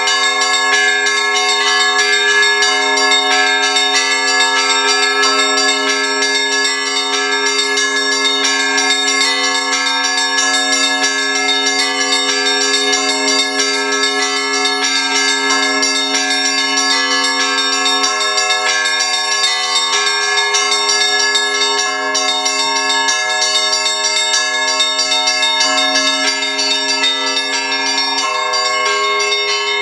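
Russian Orthodox church bells of a belfry rung together in a continuous, dense peal of many overlapping tones, with no pause. A lower bell's tone sounds on and off in the second half.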